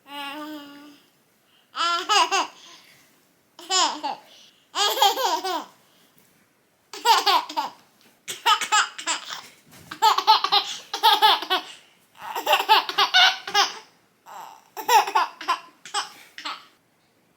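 Baby laughing and babbling in a string of short, high-pitched bursts, each about a second long, with brief pauses between.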